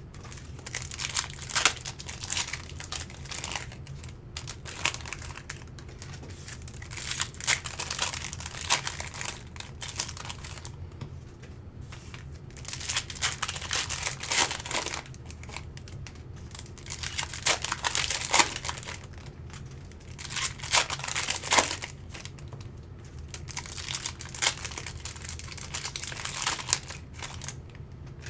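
Trading-card pack wrappers crinkling and tearing as packs are opened and the cards handled, in irregular bursts every second or two, over a low steady hum.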